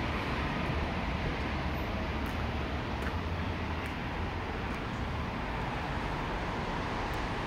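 Steady outdoor background noise: a low rumble from wind on the microphone and distant road traffic, with no distinct events.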